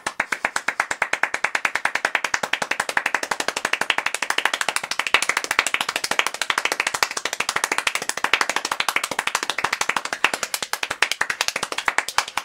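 Rapid hand clapping at an even, very fast rate of about fourteen claps a second, unbroken throughout.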